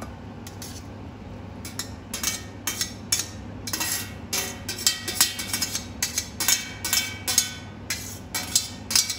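Kitchen clatter: dishes and utensils clinking and knocking in a quick, irregular string of clicks that starts about one and a half seconds in, over a low steady hum.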